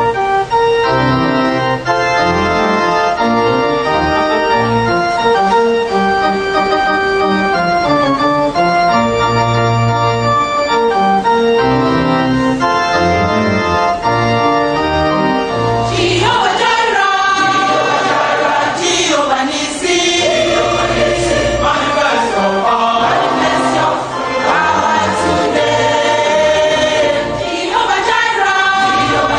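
Church music: held organ chords, then a choir comes in singing over the organ about halfway through.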